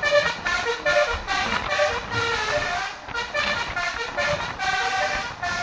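Basuri multi-tone musical air horn playing a fast telolet melody: a quick run of short, stepped horn notes, with a brief break about three seconds in.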